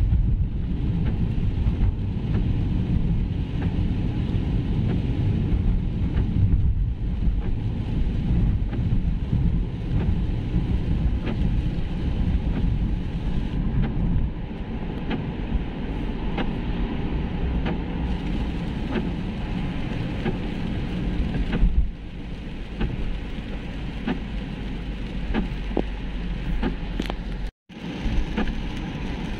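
Steady tyre and road noise of a car driving on a wet road, heard inside the cabin, with small raindrop ticks on the windscreen. The sound cuts out abruptly for a moment near the end.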